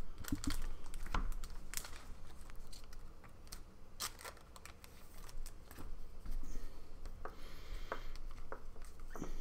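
Trading cards being handled and sorted by hand: scattered light clicks and rustles of card stock, quieter for a moment in the middle.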